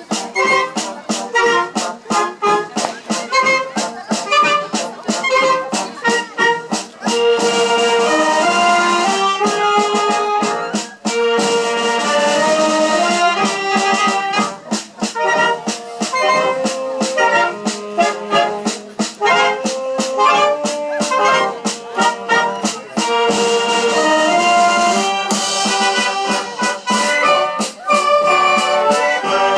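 Wind band playing a waltz: brass and clarinets over a steady beat.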